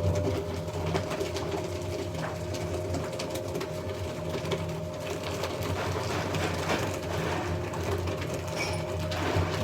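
Document shredder running steadily: the motor hums while the cutters tear through sheets of paper with a dense crackle.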